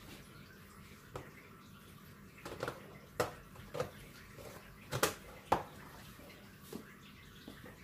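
Small clear plastic snake boxes being handled at a rack: a scatter of light clicks and knocks as a box is pulled out and its lid worked, the loudest two about five seconds in.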